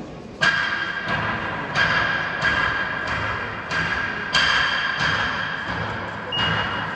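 A bell struck over and over, about three strikes every two seconds, each strike ringing on into the next.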